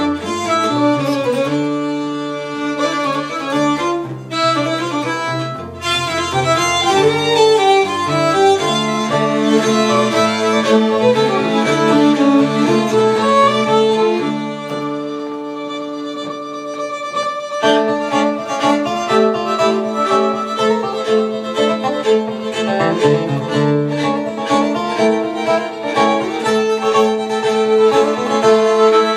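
Live Swedish folk tune played by fiddle, nyckelharpa and acoustic guitar together. The rhythmic playing eases to a few held notes for about three seconds midway, then comes back in full.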